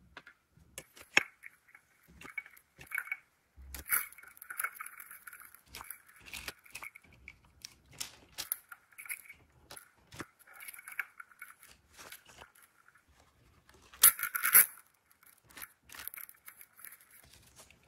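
Sticker-paper layers of a toy surprise capsule being peeled open and handled by hand: irregular rustling and tearing with small clicks of plastic pieces. The loudest is a pair of sharp tearing rustles about fourteen seconds in.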